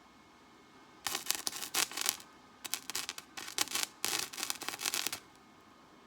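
Three rough rasping strokes, each about a second long, of a hand tool scraping across the steel of a forged axe head.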